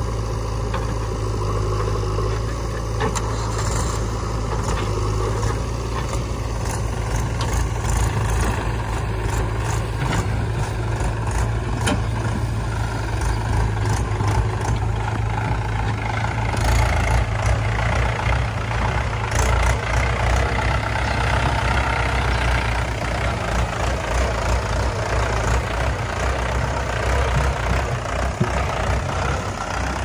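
Diesel engines of a Mahindra 475 DI tractor and a JCB 3DX backhoe loader running as a steady low drone, with a few short knocks in the first half. From about halfway through the engine sound grows louder and rougher as the tractor works with its loaded trailer.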